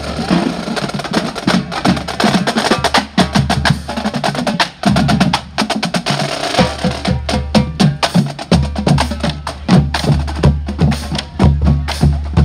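Marching band playing as it marches: a drumline beating a quick, steady rhythm of snare and tenor-drum strokes over bass drums, with sustained low brass notes and horns.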